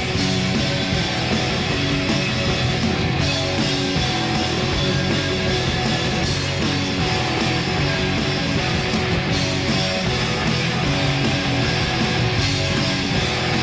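Live rock band playing an instrumental stretch: distorted electric guitars over drums and bass, loud and steady, with no singing.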